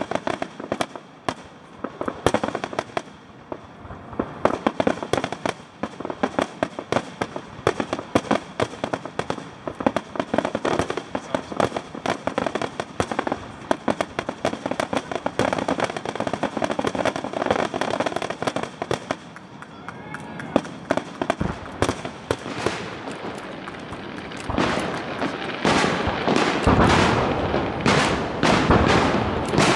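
Aerial fireworks shells bursting in rapid succession, many sharp bangs a second with crackle between them. About three quarters of the way through, the sound turns into a louder, denser barrage with a deep rumble under it.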